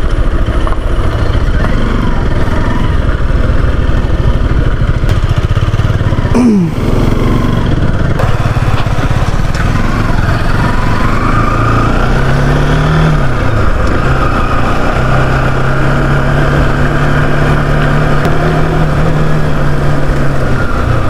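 Motorcycle running on the move. The engine note drops sharply about six seconds in, then holds steady near the end.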